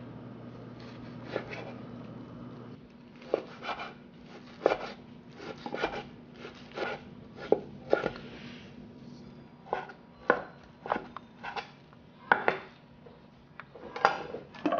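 Chef's knife slicing firm, partly frozen beef tenderloin into thin matchsticks on a wooden cutting board. Each stroke ends in a sharp knock of the blade on the board, roughly one a second and unevenly spaced.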